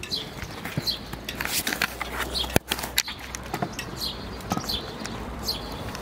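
Footsteps on brick paving, roughly two a second, with a sharp click about two and a half seconds in and a steady low rumble underneath.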